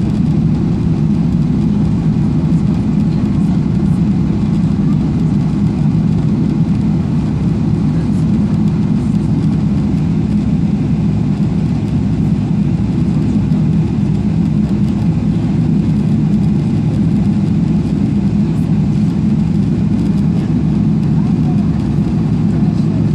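Steady low drone of a Boeing 777-300ER's GE90 turbofan engines at idle, heard inside the passenger cabin while the airliner waits before takeoff. The level holds even, with no spool-up.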